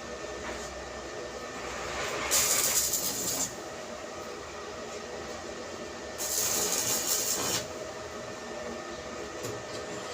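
Steady machinery hum, broken twice by loud bursts of hissing noise, each lasting about a second.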